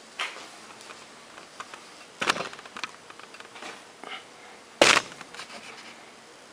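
Sharp knocks and clatter from the camera and its mount being handled and shifted, a few separate knocks with small ticks between, the loudest about five seconds in.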